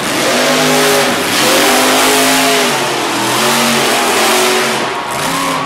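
Monster truck engine revving hard in about four long swells, rising and falling, as the truck spins donuts on the dirt floor.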